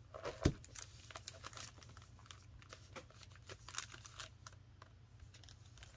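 Faint crinkling and rustling of plastic-sleeved stationery and paper being handled and shifted on a desk, with scattered light taps and one sharper click about half a second in.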